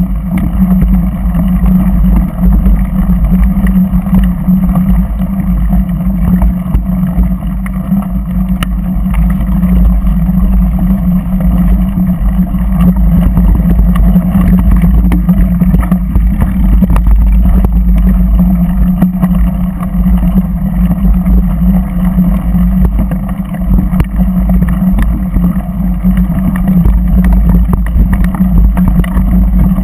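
Off-road vehicle engine running at a fairly steady pitch over a rough dirt track, with a heavy low rumble and loudness rising and falling over the bumps.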